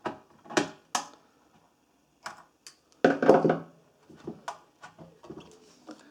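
Scattered clicks and knocks of hand tools and metal parts being handled on a workbench, with a louder clatter about three seconds in.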